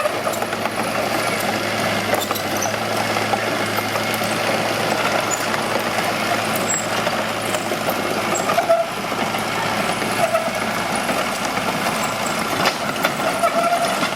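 Mitsubishi BD2H bulldozer's diesel engine running steadily, with short squeals and clicks now and then.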